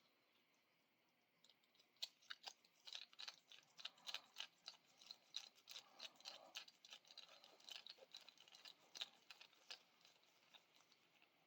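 Faint, irregular clicking and ticking of a small hard resin spin stick and its acrylic bead being handled in the hands, starting about two seconds in and dying away near the end.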